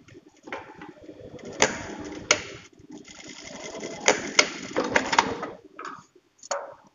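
Juki industrial lockstitch sewing machine running in two short bursts, with several sharp clicks among the stitching, as the folded ends of a waistband are sewn with back-stitching.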